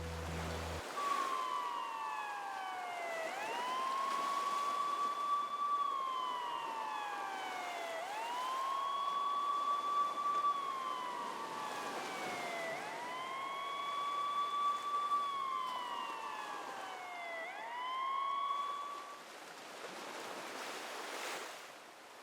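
Emergency-vehicle siren wailing: each cycle climbs quickly to a high tone, holds it, then slides slowly down, repeating four times, about once every four to five seconds, before it stops near the end.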